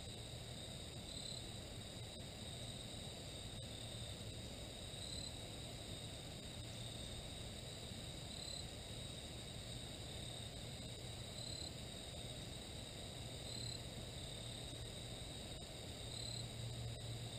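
Steady chorus of crickets and other insects: one continuous high trill with a fainter, higher tone above it, over a faint low rumble.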